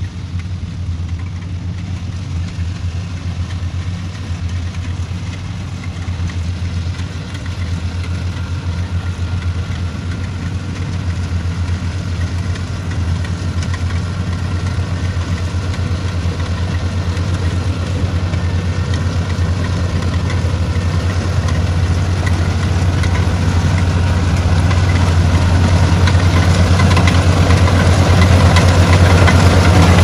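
Kubota DC-70 rice combine harvester running steadily under load as it cuts and threshes rice, its diesel engine hum and threshing machinery noise growing steadily louder as it approaches.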